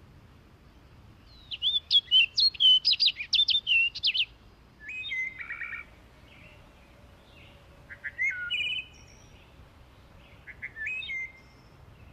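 Birds singing: a loud run of quick repeated notes lasting about three seconds, then three shorter phrases a few seconds apart, over a faint steady hiss.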